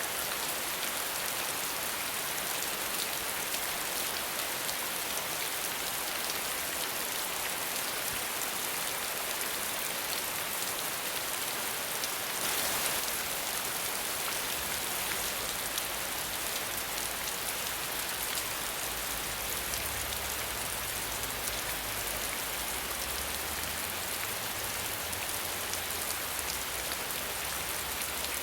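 Steady, even rain with no thunder, fine drop patter over a constant hiss, swelling briefly a little under halfway through.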